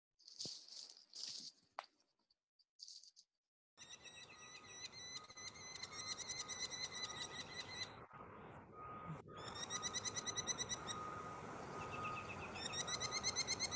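A played-back recording of a merlin calling: fast runs of shrill, repeated notes. The first few seconds hold three short hissy bursts, and a faint steady high tone runs beneath the calls.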